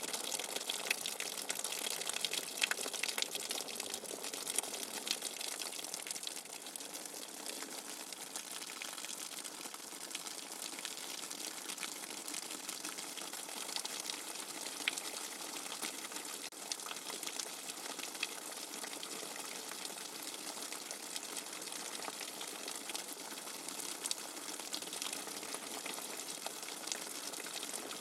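Steady white noise for sleep: an even rushing hiss with fine crackles scattered through it, unchanging throughout, with no deep rumble beneath.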